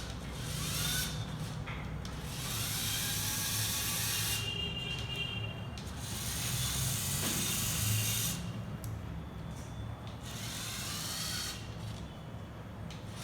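Electric motors of a LEGO Mindstorms EV3 remote-controlled car whirring in repeated runs as it is driven and steered. The bursts start and stop about four times, with short pauses between them.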